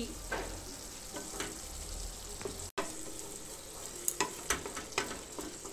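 Hilsa roe masala sizzling in oil in a nonstick wok as a flat spatula stirs and scrapes through it, with sharp taps of the spatula on the pan in the second half. The masala is frying down (kasha) in the oil it has released.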